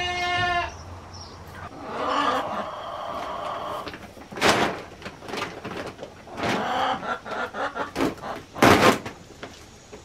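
A goat bleats briefly at the start, and a rougher bleat follows about two seconds in. After that come rustling and scraping noises of a feed bag and feed being handled at galvanized metal cans, in several short bursts, the loudest near the end.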